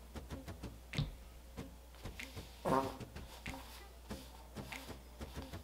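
Light taps and clicks of a plastic glue bottle and small wooden pieces being handled on a table, with one sharper knock about a second in.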